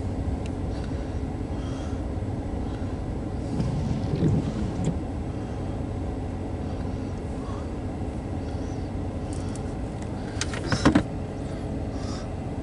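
Steady low rumble heard from inside a car in the rain. A windshield wiper sweeps the glass about four seconds in, and a sharp double knock comes near the end.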